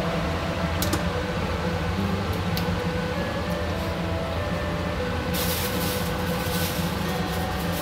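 Induction hob running under a steel pot of stewing kid goat: a steady low hum with faint whining tones. A hiss from the cooking meat grows louder from about five and a half seconds in, with a couple of light clicks earlier.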